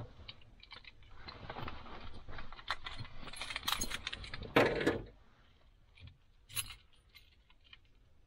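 Light metallic clinking and rustling from handling small metal parts and wiring, with a louder burst of handling noise about halfway through, then only scattered ticks.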